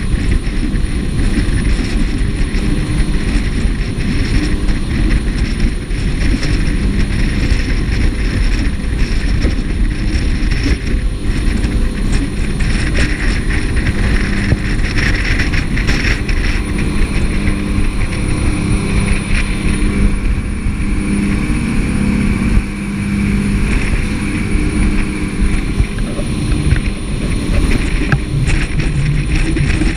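Jet boat running: a steady engine drone with a low hum under a constant rush of noise.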